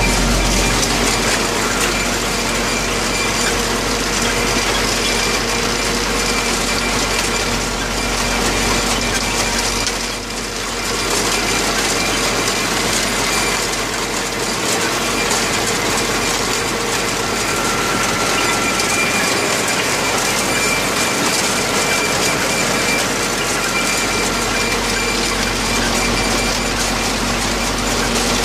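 A Kverneland 1700 potato harvester working behind a tractor: the tractor engine runs steadily while the harvester's webs and sorting table rattle continuously as they carry potatoes and haulm.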